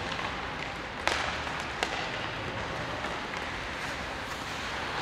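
Ice hockey rink ambience during play: a steady wash of noise, broken by a sharp crack about a second in and a smaller one just under a second later.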